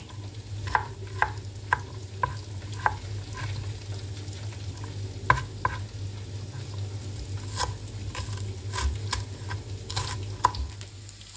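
Kitchen knife slicing kencur (aromatic ginger) leaves on a cutting board: sharp knocks about two a second for the first few seconds, then scattered strokes and a short run near the end. Underneath, tempe sizzles steadily as it fries in oil.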